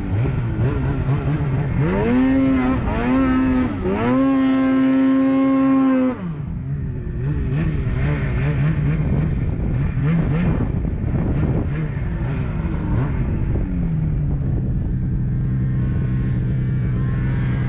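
Snowmobile engine revving hard: about two seconds in its pitch climbs steeply and is held high for about four seconds, then drops back to a lower, wavering steady run that eases down further near the end.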